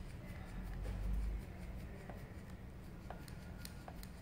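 Light, irregular clicking and rubbing from a hand-operated vacuum pump being worked to adjust the vacuum on a flask, with a low rumble from about half a second to a second and a half in.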